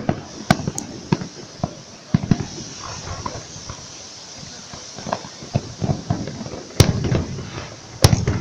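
Fireworks display: a rapid, irregular series of sharp shell bursts and bangs with echoing tails, the two loudest about seven and eight seconds in.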